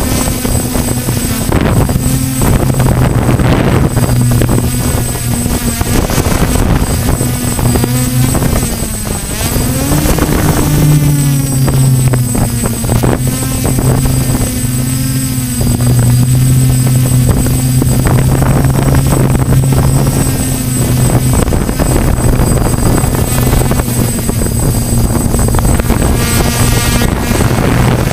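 DJI Flamewheel F550 hexacopter's six electric motors and propellers, heard from on board, humming steadily over a rushing noise. The pitch sags briefly and then rises about nine to eleven seconds in before settling again.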